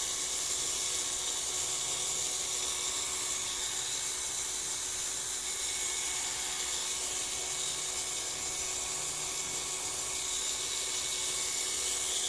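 Corded electric hair clippers running steadily as they shave a cat's belly fur.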